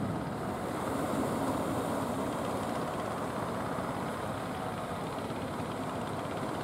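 Engines of outrigger fishing boats running at a steady pace as the boats motor in toward shore, a continuous drone.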